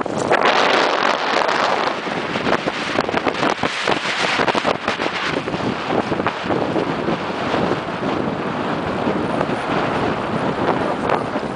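Strong wind buffeting the camera microphone in uneven gusts, strongest in the first few seconds.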